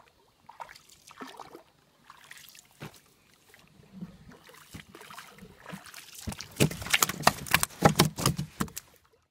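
Crinkling rustles and knocks of a woven plastic sack being handled as a fish is put into it, growing into a dense crackle over the last few seconds and then cutting off suddenly.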